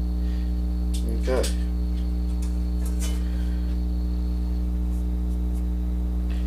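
Steady electrical mains hum with a ladder of overtones, the loudest sound throughout. Over it come a few light clicks from the metal stencil and plate being handled on the bench, and a brief murmured voice sound about a second in.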